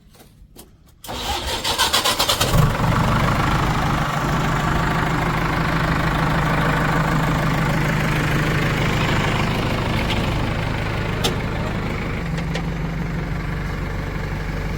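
Diesel engine cranked by its starter about a second in, catching after roughly a second and a half and settling into a steady idle.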